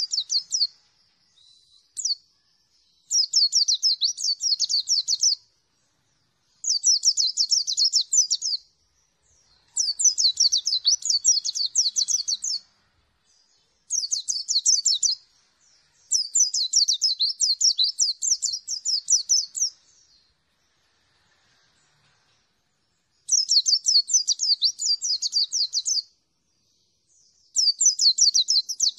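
A caged mountain white-eye (pleci dakun) singing loud, rapid, high twittering song. It comes in bursts of two to four seconds, about eight of them, with short pauses between.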